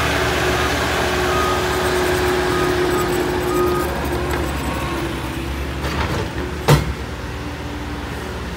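Diesel heavy equipment running steadily with a backup alarm beeping, the beeping stopping about three and a half seconds in. A single loud metal clank comes about two-thirds of the way through.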